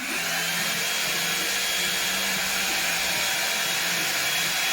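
Hair dryer with a diffuser attachment switching on and running steadily: a rush of air with a thin high motor whine that climbs briefly as it spins up.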